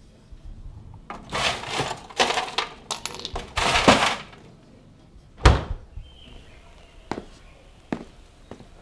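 Rummaging at a freezer: clattering and rattling for about three seconds, then one heavy thud about five and a half seconds in. A few sharp footsteps on a hard floor follow near the end.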